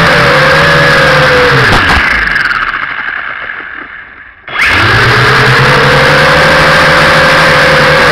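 A small vehicle's motor running loud with a wavering pitch. It winds down to a stop about two seconds in, then starts up again sharply about four and a half seconds in, rising in pitch and running on steadily.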